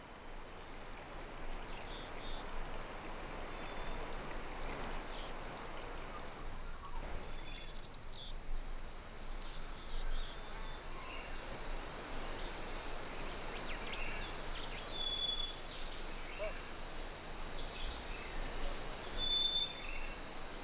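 Outdoor nature ambience: insects keep up a steady high-pitched drone while birds give many short, quick chirps and a few brief whistles, over a soft hiss.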